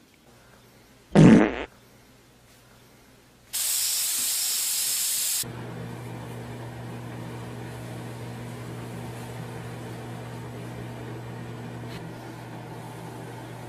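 A short, very loud fart noise about a second in, falling in pitch. A loud hiss follows for about two seconds, then a steady low hum with a faint rushing noise.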